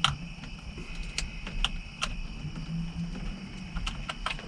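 About half a dozen light, scattered clicks and knocks from hands working the plastic clips on the back of a Chevy HHR steering-wheel airbag to free it from the wheel.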